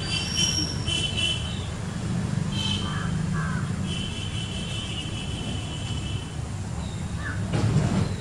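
Birds calling in the background, short high chirps and trills with a few lower calls, over a steady low rumble.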